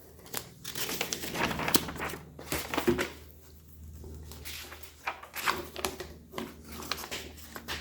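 Packaging being handled: irregular rustling and crinkling with scattered light clicks and knocks.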